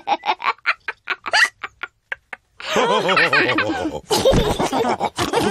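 Cartoon pig characters laughing: a quick run of staccato giggles that trails off, then after a short pause several voices break into laughter together.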